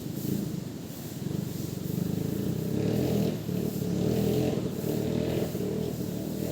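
Boat engine under repair running at a steady idle, with a fast, even low pulsing.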